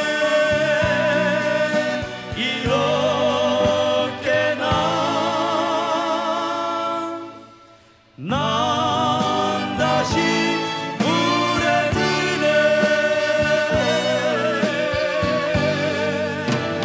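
A male vocal duo singing a slow ballad over band accompaniment, holding long notes with vibrato. About seven seconds in the music fades away for a moment, then voices and band come back in sharply.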